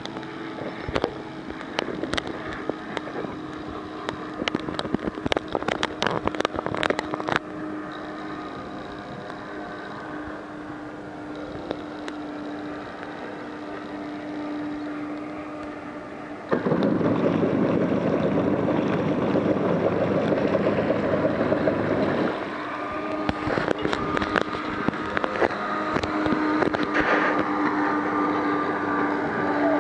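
Steady hum of a motorboat engine idling, with wind gusting hard on the microphone for about six seconds midway. Scattered knocks come in the first several seconds, and a higher engine whine joins near the end.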